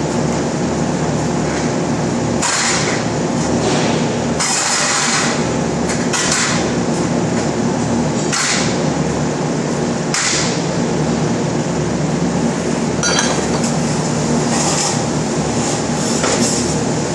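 Fabrication shop floor: a steady machine hum with several held tones, broken every second or two by short bursts of hiss and metal clatter as steel members are handled at a welding jig. One of the bursts rings briefly like struck steel.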